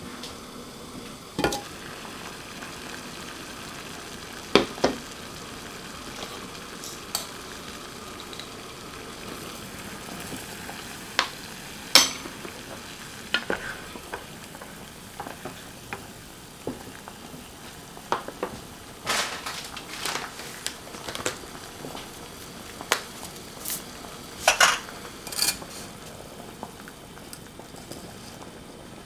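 A steady hiss as a stainless steel saucepan heats on a portable gas stove, broken by scattered clicks and knocks of a wooden spoon stirring in the pan and rock salt going in. The loudest knocks come in two clusters past the middle.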